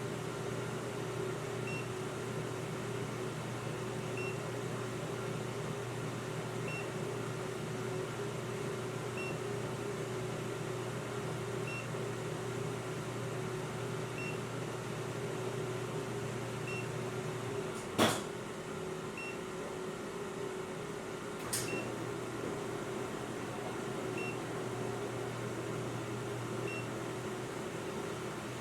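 Steady electrical or mechanical hum, like a fan or motor, with a faint short high beep repeating about every two and a half seconds. Two sharp clicks come a few seconds apart about two-thirds of the way through, the first louder.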